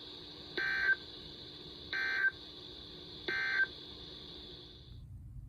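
Emergency Alert System end-of-message signal: three short, identical bursts of warbling digital data tones, a little over a second apart, closing a National Weather Service warning. A steady high hiss runs underneath and cuts off near the end.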